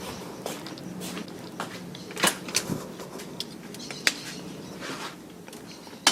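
Electric fan running with a low steady motor hum that fades near the end, with several sharp clicks and knocks over it, the loudest right at the end.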